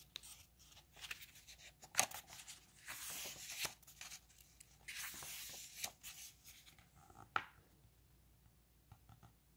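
Pages of a hardcover book being turned by hand: faint paper swishes and rustles in several stretches, with a few sharp taps, the loudest about two seconds in and another near the end.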